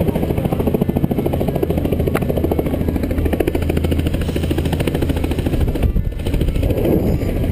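Helicopter running, its rotor making a fast, even chop over a steady low engine drone.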